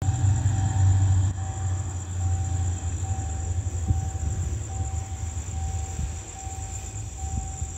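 Insects trill steadily over a repeating electronic-sounding beep, a little more than once a second, and a low rumble that is loudest in the first three seconds and then eases.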